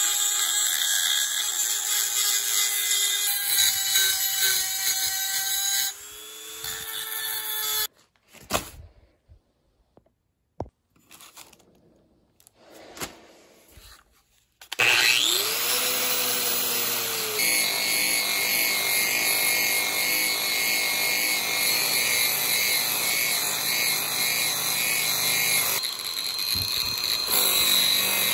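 A handheld rotary tool with a small abrasive bit grinds on a pipe wrench, its steady whine wavering in pitch with the load, then winds down with a falling tone about six seconds in. After a quiet pause with a few clicks, a grinder with a white sanding disc starts about fifteen seconds in with a rising whine and runs steadily against the wrench until near the end.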